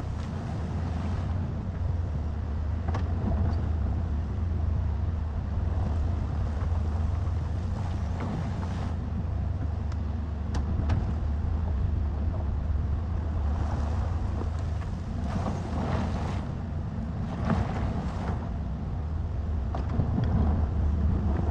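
Excavator's diesel engine running with a steady low drone, with swells of rushing noise and a few sharp clanks as the machine works.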